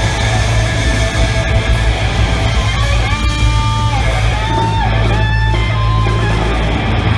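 Live rock band playing loud: electric guitar, bass guitar and drums together, with a few held, sliding pitched notes standing out in the middle.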